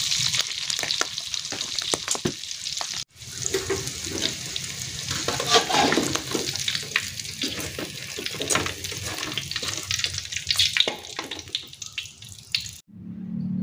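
Beef lung pieces deep-frying in hot oil in a wok: a steady sizzle and crackle, with metal tongs and a perforated skimmer scraping and clinking against the pan as the cooked pieces are lifted out. The sound cuts out briefly about three seconds in and stops just before the end.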